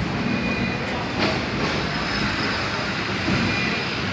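Double-decker electric tram running along its street rails: a steady rumble and rattle of the wheels and car body, with one sharp clack about a second in.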